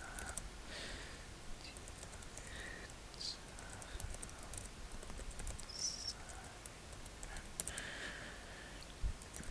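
Soft, close-miked whispered mumbling, mostly breath and hiss, with scattered light clicks and taps like keyboard typing.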